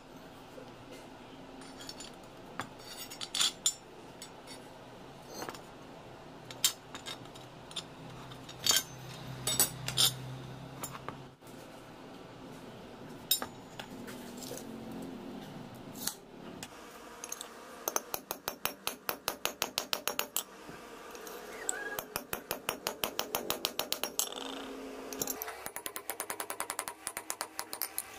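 Steel workpieces and tools being handled: scattered metallic clinks and knocks, then, past the middle, runs of rapid, even metallic clicking, about six a second, broken by short pauses.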